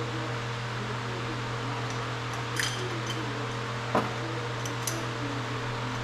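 A few light metallic clinks of small metal parts being handled, the sharpest about four seconds in, over a steady hum.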